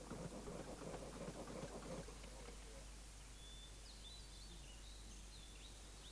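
Dense, rapid crackling and clattering from a charcoal furnace as copper is melted, stopping about two seconds in. After that, small birds chirp a few times in short, high, rising and falling calls.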